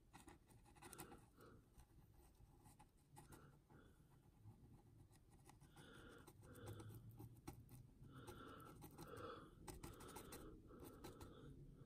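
Faint, soft scratching and dabbing of a small paintbrush working gritty mud texture paste around a model's feet, in short strokes roughly twice a second that come more often in the second half.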